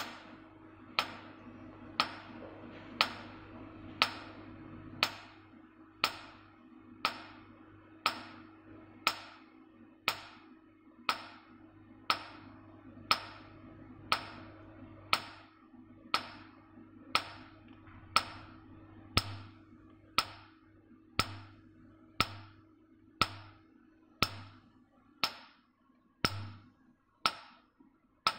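Nd:YAG laser handpiece pulsing on carbon gel on the skin at one pulse a second: a sharp snap with each shot as the carbon is blasted off. A low steady hum from the machine runs underneath.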